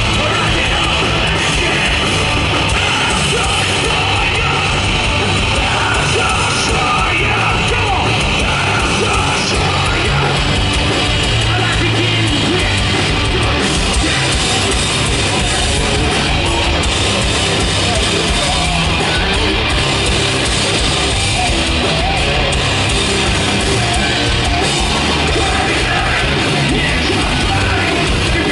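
Hardcore punk band playing loud and steady live: distorted electric guitars, bass and drums, with shouted vocals.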